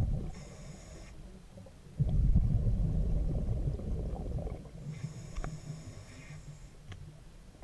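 Scuba diver breathing through a regulator: a faint hissing inhale, then a low bubbling rumble of exhaled bubbles from about two seconds in, and another hissing inhale about five seconds in.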